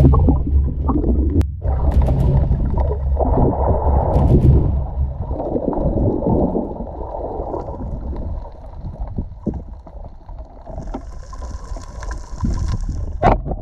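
Muffled water sloshing and gurgling, with scattered knocks, as picked up by a camera in a waterproof housing during spearfishing. It is heaviest for the first five seconds, then quieter, with a brief hiss near the end and a sharp click just before it ends.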